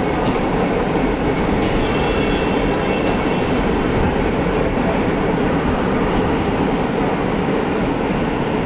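Steady running noise of a suburban EMU (electric multiple unit) train in motion between stations, heard from aboard.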